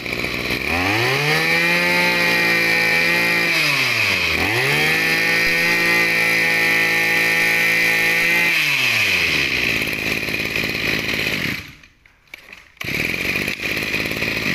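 Maruyama 23cc two-stroke brush cutter engine on test: revved to a high, steady whine, let down to idle briefly about four seconds in, revved again, then brought back to idle. It cuts out about three-quarters of the way through.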